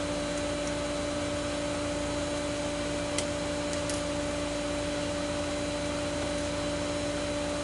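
Steady mechanical hum at an even level, with two faint light clicks about three and four seconds in.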